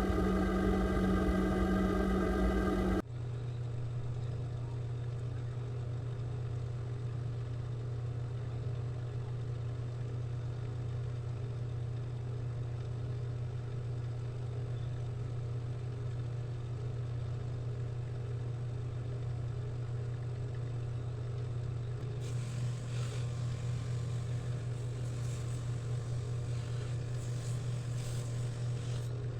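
Steady low machine hum. A louder, fuller tone over it stops abruptly about three seconds in, and in the last quarter a light, irregular scratchy hiss comes and goes over the hum.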